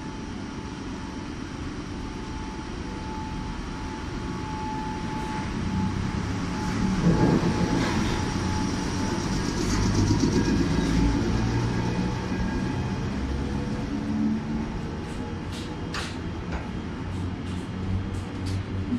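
Chichibu Railway Deki 507 electric locomotive pulling out with a train of 12-series passenger coaches: a low running rumble with a steady tone that fades out about nine seconds in, loudest as the locomotive passes, then the coaches' wheels clicking over rail joints near the end.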